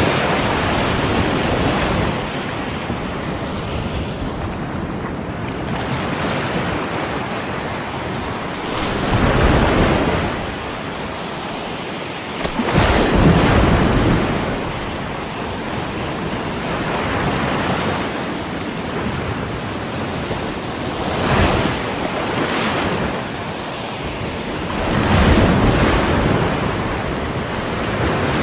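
Surf breaking and washing up a sandy beach close by, surging louder every few seconds as each wave rushes in and then easing off.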